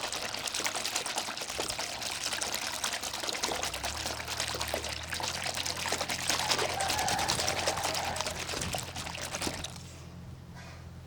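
Water pouring and splashing steadily, stopping abruptly near the end. A faint low hum runs underneath from partway through.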